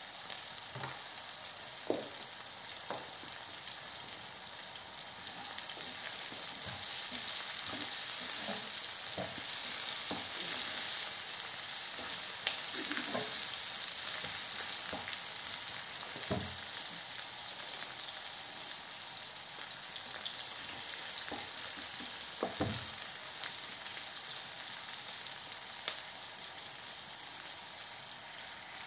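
Sliced onions and green chillies sizzling as they fry in hot oil in a pan, a steady high hiss that swells a little a few seconds in. A few light knocks of a spatula as they are stirred.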